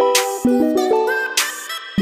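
Outro music: quick runs of plucked notes over a beat, with sharp hits recurring.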